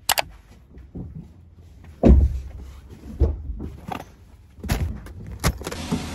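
Bags and gear being loaded into a car's open rear hatch: a series of knocks and thumps, the heaviest about two seconds in, with a couple of sharp clicks near the end.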